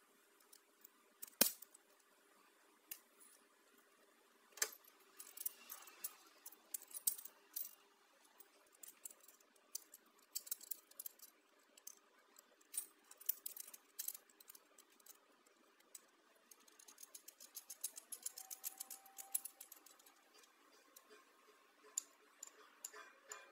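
Irregular light clicks and taps of small hard objects being handled, with a quicker run of ticks past the middle. A faint steady hum runs underneath and stops about two-thirds of the way through.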